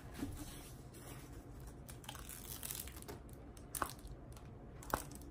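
Clear plastic protective film on a diamond painting canvas crinkling faintly as it is handled and lifted, with a few short sharp crackles.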